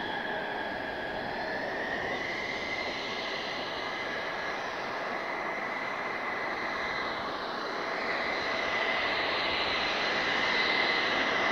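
Mitsubishi F-2's single F110 turbofan running at taxi power as the jet rolls slowly, a high steady whine over a rush of jet noise. It grows louder over the last few seconds.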